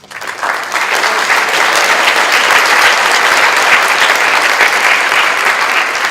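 An audience applauding: many hands clapping, starting abruptly and holding steady at full strength, beginning to fade near the end.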